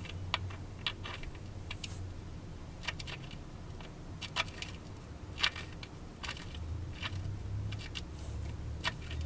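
Irregular light metallic clicks and taps, about a dozen, as a seal-removal tool is worked and turned against a transmission gear-shift seal, its thread not catching. A steady low hum underneath.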